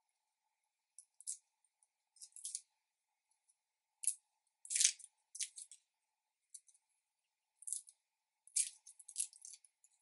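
Dry, papery garlic skins crackling and rustling as fingers peel them off the cloves. The crackles come in short bursts with silence between them, loudest about halfway through.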